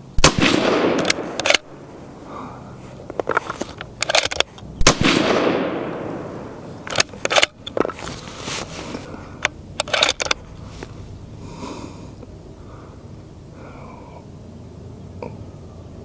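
Two shots from a suppressed .308 Winchester bolt-action rifle, about four and a half seconds apart, each trailing off in a rolling echo. Sharp metallic clicks of the bolt being worked come between the shots and after the second.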